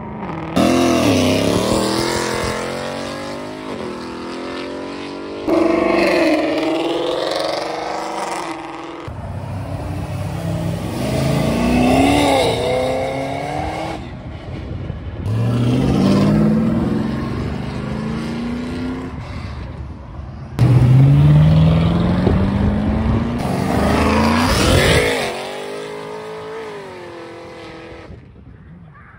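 A run of short clips of modified Mustangs and Camaros pulling away under hard acceleration, one car after another. Each engine's note climbs steeply and drops back at the gear changes, with abrupt cuts between the cars.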